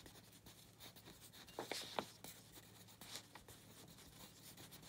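Faint scratching of a pen writing words on paper, with a few sharper ticks of the pen near the middle.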